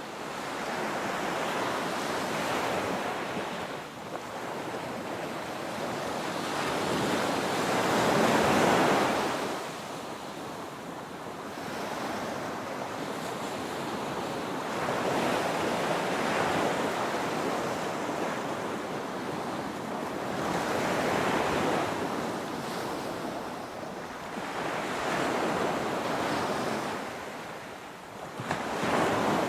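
Ocean waves breaking on a beach: a continuous rushing surf that swells and ebbs every few seconds, with the biggest surge about a third of the way in and another near the end.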